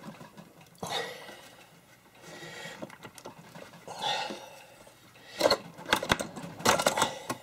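Clicks, scrapes and rubbing from a mobile radio being handled and fitted into its under-desk mounting bracket. A cluster of sharper clicks comes near the end.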